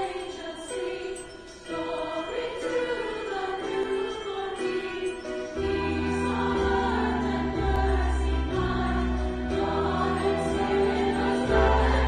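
Large church choir singing with orchestra accompaniment. About halfway through a deep bass comes in and the music grows louder.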